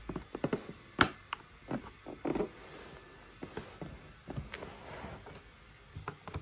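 Hands handling hard objects: a run of irregular clicks, knocks and rustles, with the sharpest click about a second in.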